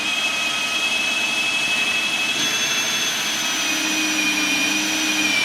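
Electric drill running continuously under load, boring a hole through a hardwood hickory beam wrap, with a steady high whine whose pitch sags slightly as the bit works through the hard wood.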